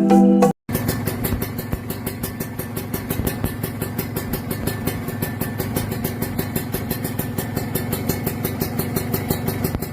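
Kawasaki Ninja 150 R/RR two-stroke single-cylinder engine idling steadily through an aftermarket racing exhaust, with a quick regular pulse. A snatch of marimba music ends just before the engine cuts in.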